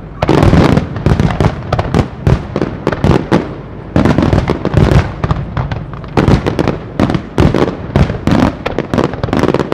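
A fireworks display firing a dense barrage of bangs and crackles, several reports a second without a break, with heavier booms standing out among them.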